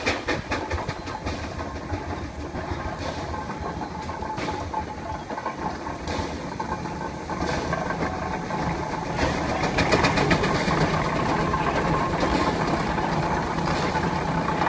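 Climax geared steam locomotive pulling away, its exhaust beating in quick, even chuffs, growing louder about halfway through as it comes close.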